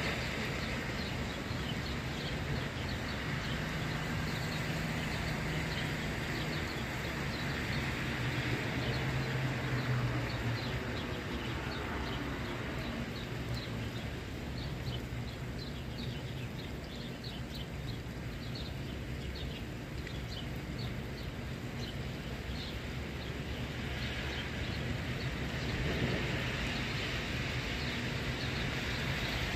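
Cars and vans passing on a rain-wet street: engines humming and tyres hissing on the wet road, coming and going over a steady background wash.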